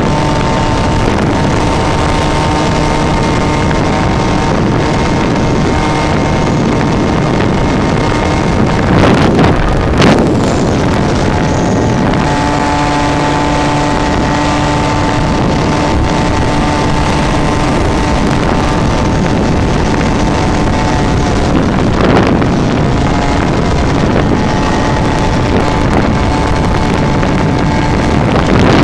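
Small 50cc two-stroke motorbike engine running at a steady cruising speed under wind rushing over the on-board microphone, with a couple of brief louder swells about nine and twenty-two seconds in.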